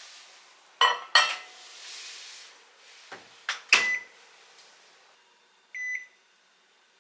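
Microwave oven being worked: a few sharp clicks and knocks as it and the cup inside are handled, then a single short electronic keypad beep near the end.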